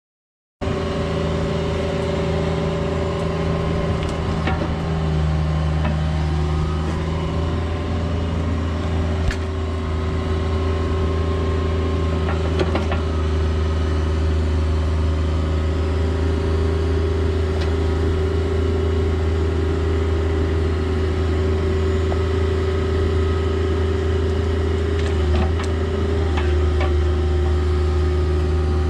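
Cat 304 mini excavator's diesel engine running steadily under hydraulic load while the bucket digs soil, with a few short knocks and scrapes. The engine note shifts slightly about five seconds in and again near the end. The sound starts abruptly about half a second in.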